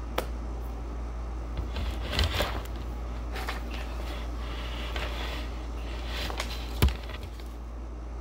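Steady low room hum, with soft rustles and small taps of hands moving against clothing. A sharp knock near the end is the loudest sound.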